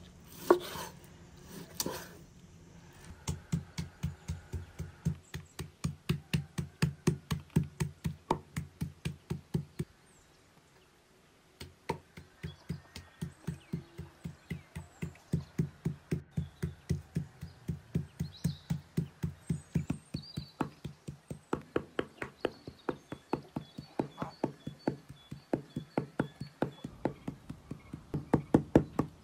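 A large kitchen knife chopping raw beef into mince on a wooden cutting board: rapid, even strikes of the blade through the meat into the board, about five a second, with a short pause partway through.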